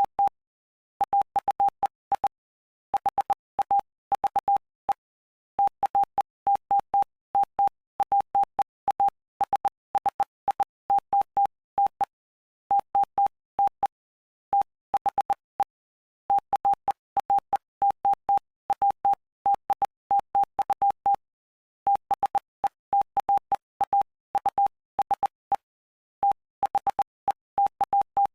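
Morse code sent as a single steady beep tone keyed on and off in short and long beeps, with short pauses between letters and longer gaps between words: the text of Mark chapter 8 sent for code practice.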